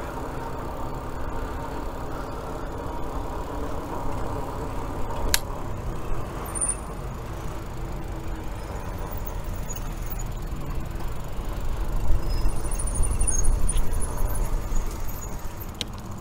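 Electric bike riding along a paved path: a steady low rumble of tyres and wind with a faint steady hum in the first few seconds. A single sharp click comes about five seconds in, and the rumble grows louder for a few seconds near the end.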